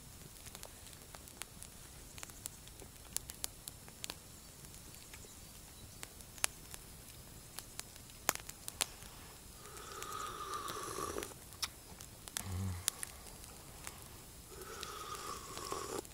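A man slurping hot tea from a metal mug twice, about ten seconds in and again near the end, over scattered faint crackles from a smouldering campfire.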